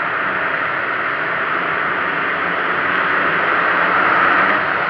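Many motocross bike engines running together in the distance, blending into a steady, dense buzzing drone as the pack races around the track.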